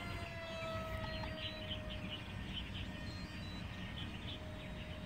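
Whine of a 90mm electric ducted fan RC jet (a Freewing F-15 model) flying overhead on its landing approach. The pitch sags slightly, fades about two seconds in, and comes back near the end as the jet circles.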